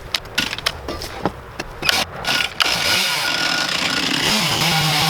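A run of irregular clicks and knocks, then a Stihl MS 460 two-stroke chainsaw running steadily from about three seconds in.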